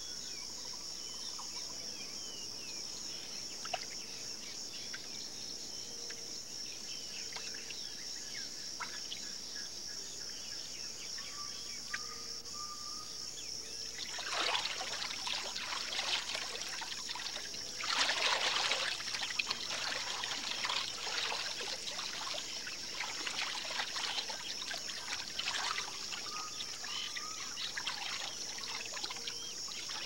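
A steady, high insect chorus of crickets or similar insects, with sloshing and splashing water joining a little before halfway through as a caiman moves through the shallows. The water sound is loudest about 18 seconds in.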